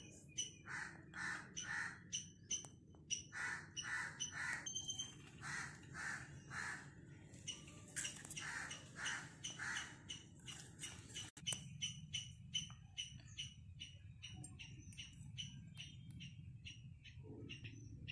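Crows cawing repeatedly in runs of two or three calls, dying away about ten seconds in, with faint high chirps of smaller birds throughout.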